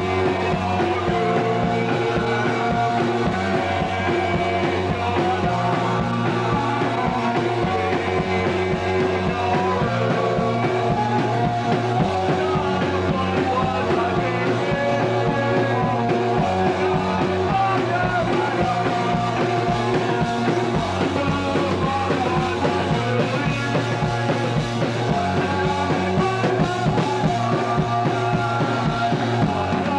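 Rock music playing without a break, its bass line moving to a new note every second or two.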